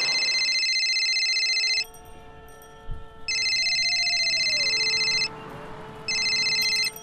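A phone ringing with a high electronic ringtone: three rings of about two seconds each, the third much shorter.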